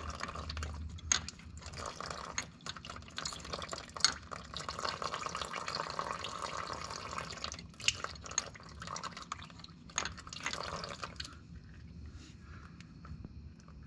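Thin stream of gear oil trickling from the tractor's open brake actuator rod hole into a drain pan, leaking past where the rod seal has been removed. There are a few sharp clicks of handling along the way, and the trickling quietens about eleven seconds in.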